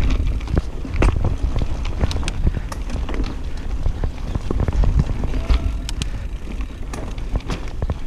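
Mountain bike descending a rough trail at speed: frequent irregular clicks and clatter as the bike rattles over bumps, with wind rumbling on the microphone.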